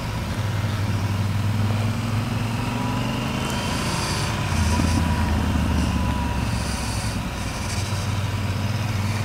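Yamaha Super Ténéré adventure motorcycle's parallel-twin engine running at low road speed, its pitch rising and falling with the throttle, heard from the rider's own bike. A few brief rushes of wind hiss come in the middle.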